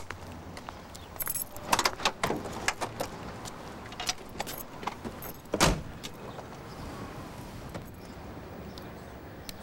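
Keys jangling and small rattles as someone gets into a car, then the car door shuts with a single heavy thump about five and a half seconds in.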